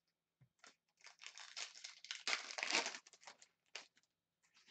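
An Upper Deck Synergy hockey card pack's wrapper being torn open and crinkled by hand: dense crinkling starts about a second in and is loudest between two and three seconds, then a few light rustles.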